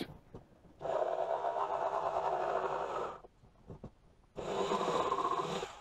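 Electric jigsaw cutting through a plastic battery box lid in two runs, the first about two and a half seconds long and the second about a second and a half, with a short pause between them.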